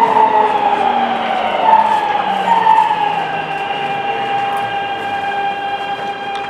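Traction inverter whine of a Keikyu New 1000 series train, the 'Doremifa' Siemens GTO VVVF inverter, heard inside the passenger car: several tones sliding slowly down in pitch and growing quieter as the train slows, over the running noise of the wheels.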